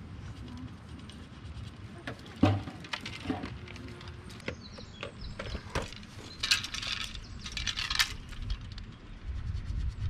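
Handling of fishing tackle: scattered small clicks and knocks, one sharper knock about two and a half seconds in, and short bursts of rustling in the second half.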